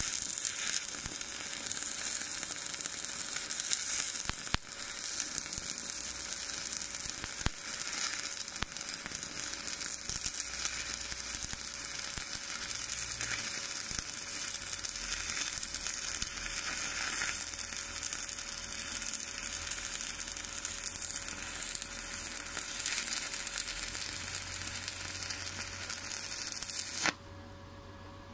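Stick-welding (SMAW) arc from an E6013 electrode, 2.6 mm at 80 amps, running steadily as a bead is laid on a practice plate. It cuts off suddenly about a second before the end as the arc is broken.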